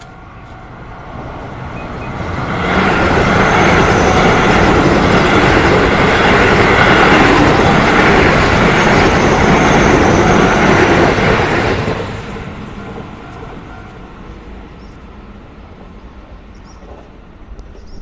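Keio electric commuter train passing over a level crossing, a loud rumble of wheels on rails that builds over about two seconds, holds for about nine seconds and then fades away. The crossing's warning signal sounds faintly as steady tones before the train arrives.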